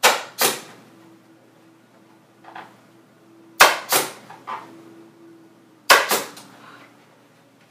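Pneumatic upholstery staple gun firing staples through canvas into the table's edge, in quick pairs: two sharp shots right at the start, two more about three and a half seconds in, and another pair near six seconds.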